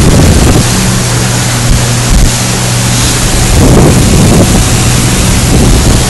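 Motorboat under way: a steady engine hum under the rush of water and wind, with wind buffeting the microphone in gusts.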